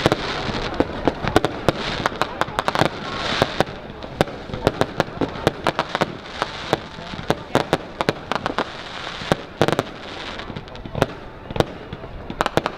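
Fireworks going off: a rapid, irregular string of sharp bangs and pops, several a second, thinning out somewhat after about ten seconds.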